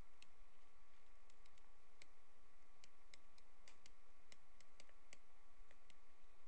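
Stylus tapping on a tablet screen during handwriting: irregular light clicks, two or three a second, over a faint steady hum.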